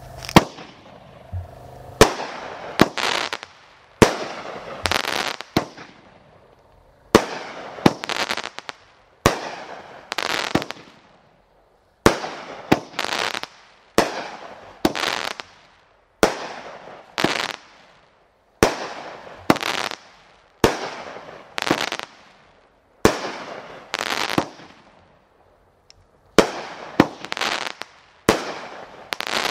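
A 500-gram fireworks repeater cake firing shot after shot, about one a second. Each shot is a sharp launch thump followed by a crackling burst that fades.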